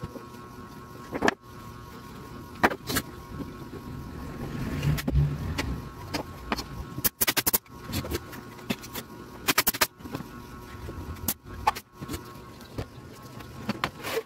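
Plywood cabinet panels being handled and fitted in a workshop: a string of sharp knocks, taps and clatter, a few in quick clusters, over a steady hum. Several brief abrupt dropouts break the sound.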